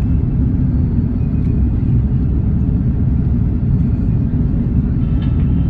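Steady low rumble of an Airbus A330-200's cabin noise, the engines and airflow heard from a passenger seat.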